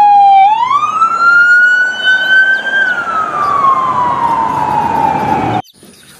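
Police car siren wailing: one tone dips, climbs over about two seconds, then slowly falls again, and cuts off suddenly near the end.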